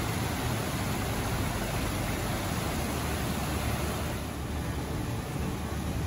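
Steady rushing of a rocky moorland stream (beck) running down a ravine, an even unbroken noise.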